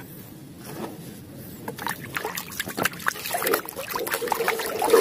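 Muddy water splashing and sloshing in a plastic basin as a toy is washed by hand, with irregular small splashes and knocks that get louder after the first second.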